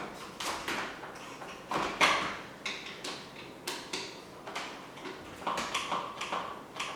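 Irregular clicks, snaps and scrapes of hand work on a bicycle rim-brake caliper as it is worked and adjusted for centring: the caliper mechanism has a lot of flex.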